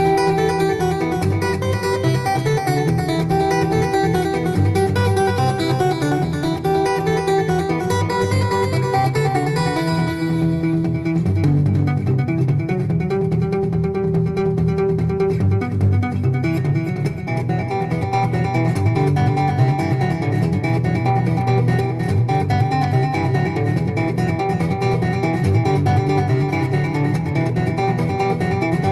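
Background music: a plucked acoustic guitar playing, its brighter upper notes dropping away about eleven seconds in.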